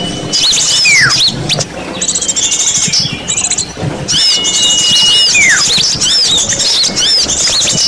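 Bird-lure recording of many small songbirds calling at once: a dense layer of quick, high chirps and trills, with a held high whistle that drops into a falling whistle, repeating about every four seconds as the mix loops.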